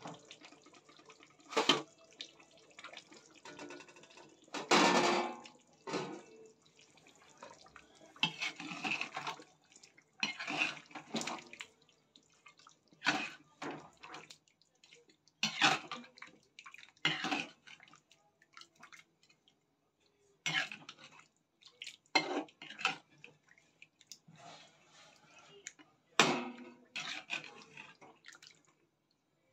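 Chicken curry bubbling and spluttering in a kadhai on the stove, with clinks and scrapes of cookware, in short irregular bursts separated by quiet gaps.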